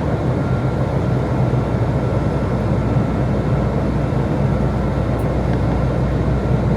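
Steady cabin drone of an Airbus A320 in the climb: its IAE V2527-A5 turbofan engines, at reduced climb thrust, and the airflow over the fuselage, with a faint steady whine on top.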